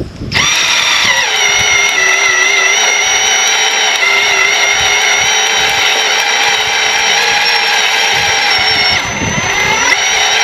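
Kubota compact tractor's drivetrain whining as the tractor drives forward to pull wire through a wire stripper. The whine starts suddenly, sinks in pitch within the first second as it takes the load, holds steady, then wavers and rises near the end.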